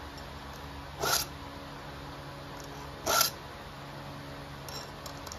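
Round chainsaw file rasping across a saw-chain cutter tooth, two short push strokes about two seconds apart, sharpening the chain by hand.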